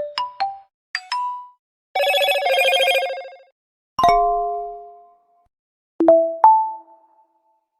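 Default smartphone notification tones from different brands played one after another: five short electronic chimes of one to three ringing notes each, one of them a longer shimmering jingle about two seconds in.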